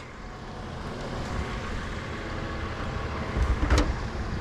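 An engine running steadily, its pitch rising slightly, with a sharp knock about three and a half seconds in.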